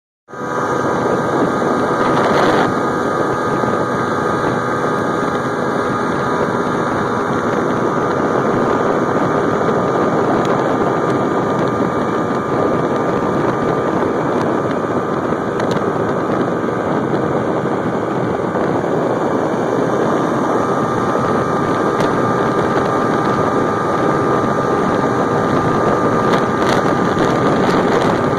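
Motorboat engine running steadily at towing speed, mixed with the rush of the wake and wind on the microphone. Brief louder rushes come about two seconds in and near the end.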